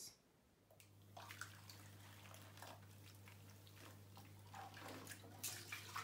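Water splashing and dripping as soaking, soapy laundry is handled between a vintage Hoover washing machine tub and its spin dryer, over a low steady hum that starts about a second in.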